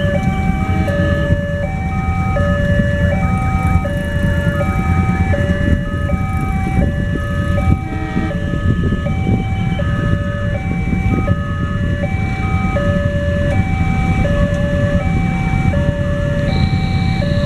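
Automatic railway level-crossing alarm giving its two-tone warning, a lower and a higher note alternating evenly, about one high-low cycle every second and a half. Beneath it runs a steady low engine rumble from idling motorcycles and the approaching diesel train.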